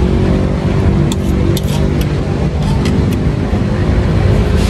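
Steady road traffic rumble with a vehicle engine's hum, and a few light clinks of a spoon and fork on a bowl about one, two and three seconds in.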